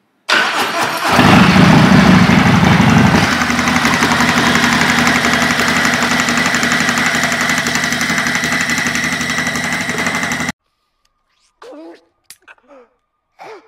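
Harley-Davidson V-twin engine of a performance bagger cranked and started. It runs loud and rough for about three seconds, then settles into a steady idle with a fine regular ticking on top, and cuts off suddenly near the end. The clacking persists after the repair; the owner now places it at an intake valve.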